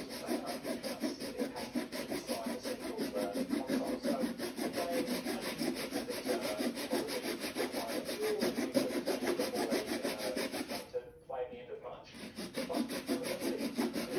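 A metal blade scraped rapidly back and forth across the hard plastic housing of a Ryobi 18V tool, several even strokes a second, shaving it down. The strokes stop briefly about eleven seconds in, then start again.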